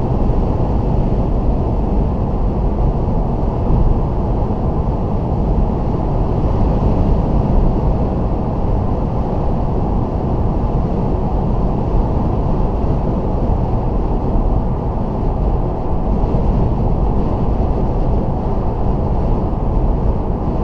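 Toyota Auris driving at motorway speed, heard from inside the cabin: a steady low rush of tyre and wind noise.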